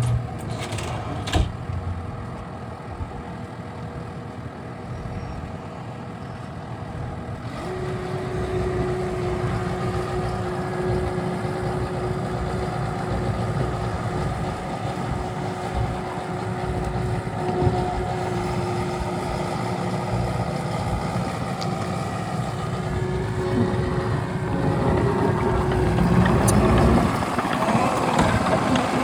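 Takeuchi TL12V-2 compact track loader's diesel engine running. A steady whine joins about a quarter of the way in, and the sound turns louder and rougher near the end.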